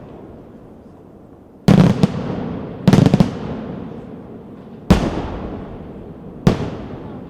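Aerial fireworks bursting: four loud bangs one to two seconds apart. The first two break into quick volleys of several reports, and each bang trails off in a long echo.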